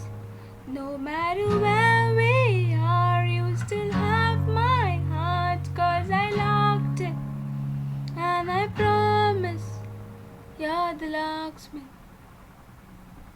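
A female voice singing a slow pop ballad over strummed acoustic guitar chords. The voice and guitar stop near the end, leaving faint hiss.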